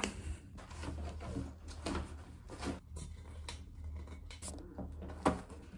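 Small knocks, clicks and rustles of things being handled and packed into a bag on a table, with one sharper knock near the end.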